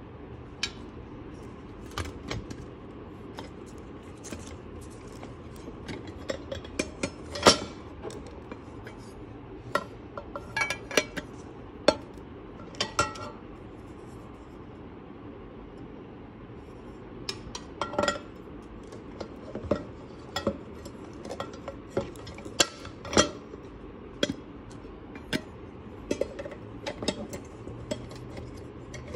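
Metal stacking tiffin carrier being handled: its tiers, lids and wire carrying frame clink and knock against each other in irregular taps. The loudest knock comes about seven seconds in.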